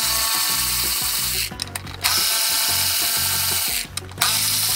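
Milwaukee 3/8-inch cordless ratchet running in three bursts with short pauses as it backs out the 10 mm throttle body mounting bolts.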